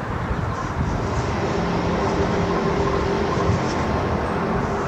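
A steady low droning rumble with long held tones over it, one tone setting in about a second and a half in. It is the unexplained 'weird sound from the sky' of a sky-sound sighting.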